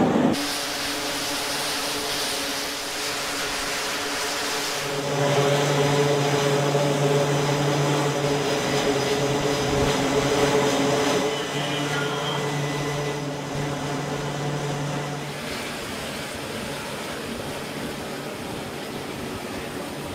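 Jet aircraft engines running on a carrier deck: a steady, loud noise with a low hum and a whine through it. It jumps louder about five seconds in and drops back in steps after about eleven seconds.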